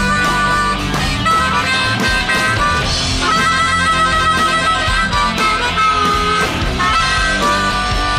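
Blues harmonica solo played into a vocal microphone, held, bending notes over a live electric blues-rock band of guitars, bass and drums.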